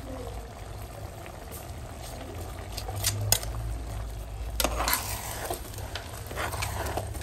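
A large metal spoon stirring spaghetti in a big metal cooking pot, scraping and clicking against the pot a few times, the loudest about three and five seconds in, over the bubbling of the hot cooking liquid.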